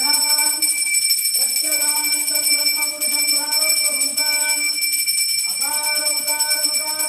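A temple hand bell (ghanta) rung without pause, a steady high metallic ringing, over a voice singing a melodic chant in held notes that break off every second or so.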